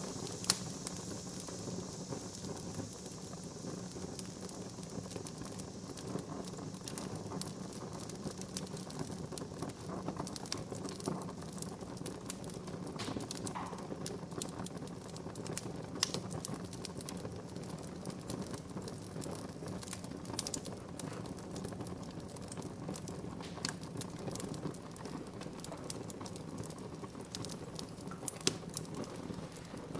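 Wood fire in a fireplace crackling, with scattered sharp pops and snaps over a steady low rush of burning; the loudest pop comes about half a second in.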